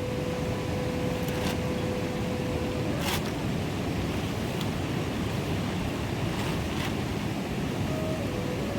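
Mountain river rushing steadily, with a few brief sharp knocks around one and three seconds in.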